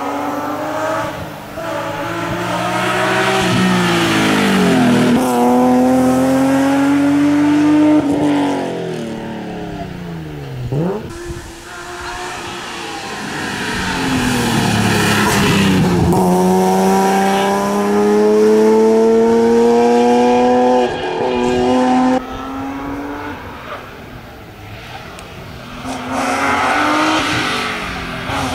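BMW M3 E36 rally car's straight-six engine at full throttle, its pitch climbing hard and dropping back at each gear change as the car accelerates along the stage and passes.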